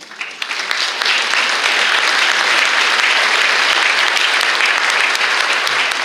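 Large audience applauding. The clapping swells in over about the first second, then holds steady.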